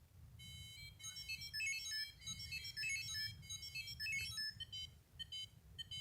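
Tamagotchi virtual pet's beeper playing a quick electronic tune of stepped high notes, the jingle of two Tamagotchis linking up for a versus match, followed by three separate short beeps near the end.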